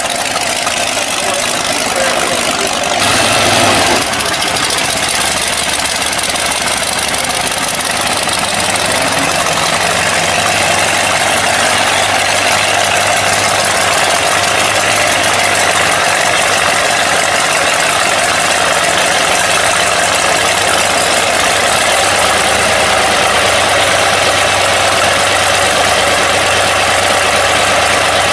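Supercharged V8 of a hot rod running through open headers, idling loudly and steadily, with a brief rev about three seconds in.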